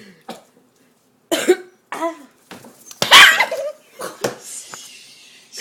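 Several short, gruff throat sounds from people, either burps or coughs, with the loudest about three seconds in.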